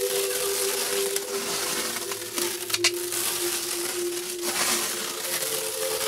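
Plastic stretch wrap being pulled off a hand-held roll and stretched around a sewing machine: a continuous noisy rustle of the film, with one sharp snap about halfway through.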